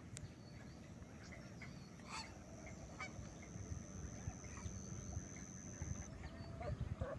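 Faint honking calls of waterbirds in a wetland, scattered and brief, over a thin steady high whistle that stops about six seconds in and a low rumble of wind or handling noise.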